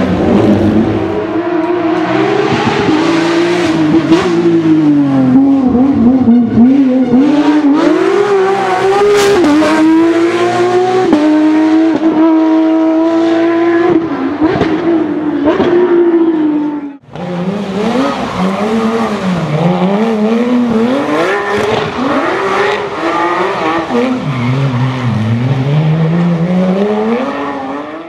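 Porsche 911 SC's air-cooled flat-six revving hard, its revs rising and falling unevenly as the car spins donuts, with tyres squealing and skidding. The sound cuts out for a moment about two-thirds of the way through, then the revving and tyre noise resume.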